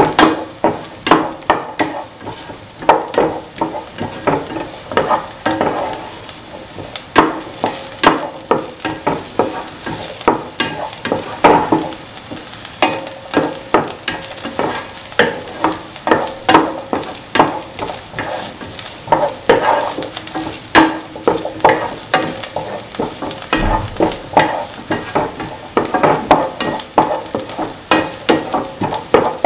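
A spatula stirring sliced onions, shallots and dried red chillies in a frying pan: a steady run of clicks and scrapes against the pan over the sizzle of the onions sautéing in oil.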